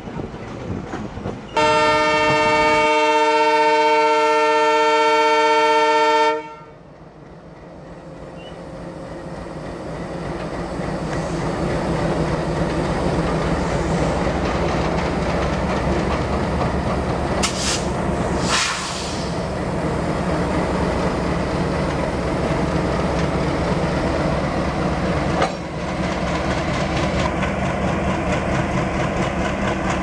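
Diesel locomotive horn sounding one long multi-tone blast of about five seconds, cut off sharply. Then the heavy running of a pair of diesel locomotives with wheel clatter, building over several seconds and holding steady.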